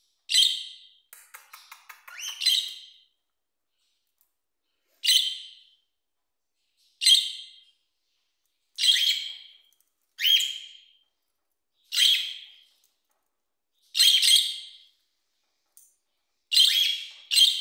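A caged pet parrot giving loud, sharp, repeated calls, about one every two seconds, with a quick run of faint clicks just after the first call.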